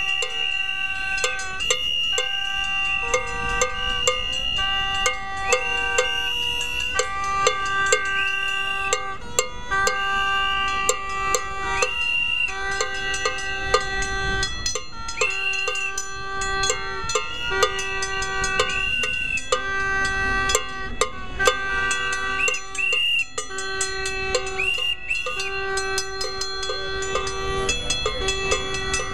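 Rally noisemakers, mostly whistles and horns, blown in overlapping blasts of a second or two, again and again, mixed with frequent sharp clanks and knocks.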